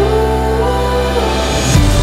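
Background music with sustained chords.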